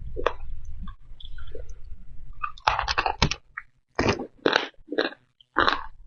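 Close-miked crunchy chewing of food in the mouth: soft mouth sounds at first, then a run of five or six loud, sharp crunches from about three seconds in.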